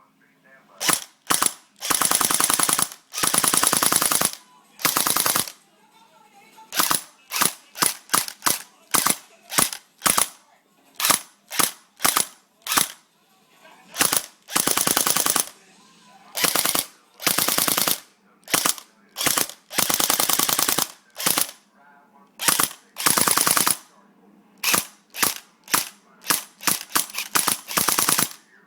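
Airsoft AK rifle with a blowback action firing on full auto in repeated bursts. Most bursts are short and a few run about a second. The bolt cycles in a rapid clatter of shots.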